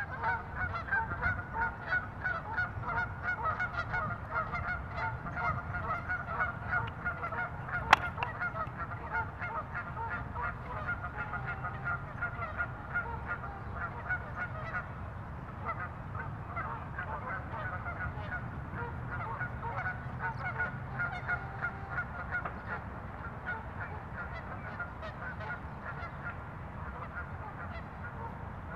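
Birds calling without a break in dense, rapidly repeated honking notes over a steady low rumble, with one sharp click about eight seconds in.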